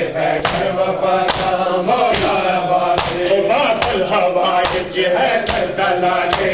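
Men chanting a Muharram noha together, with rhythmic chest-beating (matam) slaps on the beat, a little more than one slap a second.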